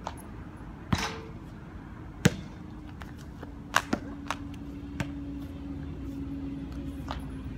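A basketball hitting the rim and bouncing on the hard outdoor court: a string of sharp, separate thuds, the loudest about two seconds in.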